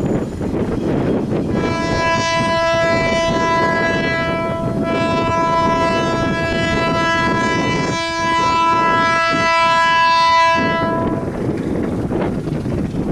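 Diesel locomotive's multi-note air horn sounding one long blast of about ten seconds, starting a second and a half in, over the low rumble of the locomotive's engine as it moves slowly.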